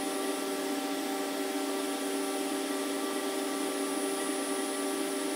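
Surface grinder running with its wheel spinning and table traversing, heard sped up five times: a steady, raised-pitch hum with several held tones over hiss. The wheel is not yet cutting.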